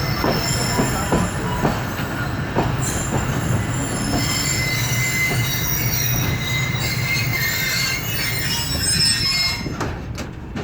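Passenger train rolling slowly into a station: wheels and brakes squeal in steady high tones over a low rumble, with clicks of wheels over rail joints that thin out as it slows. The sound drops off near the end.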